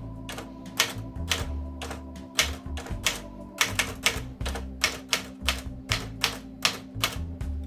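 Late-1960s Smith-Corona Corsair Deluxe portable manual typewriter being typed on: a run of sharp key strikes, typebars hitting the platen, about two to three a second at an uneven pace.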